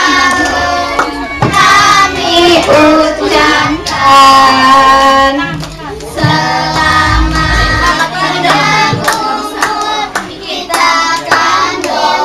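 A group of adults and children singing a birthday song together, with hand clapping.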